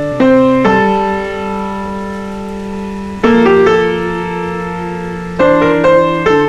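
Background music: a slow solo piano piece, chords struck and left to ring, with new chords coming in every second or two.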